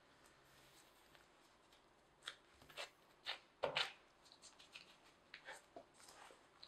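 Gloved hands folding and pressing a block of dough on a silicone mat: faint crinkling of the disposable plastic gloves and soft pats and rubs on the dough, a handful of short sounds starting about two seconds in, loudest around the middle.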